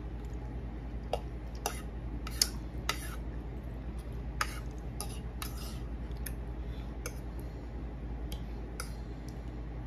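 Metal fork clinking and scraping against a plate of spaghetti and meatballs: a dozen or so irregular sharp clicks, the loudest about two and a half and four and a half seconds in, over a steady low hum.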